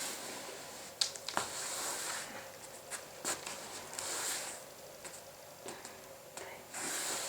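Leather ballet shoes sweeping across the floor in repeated soft swishes during ballet foot exercises, with two sharp taps about a second in.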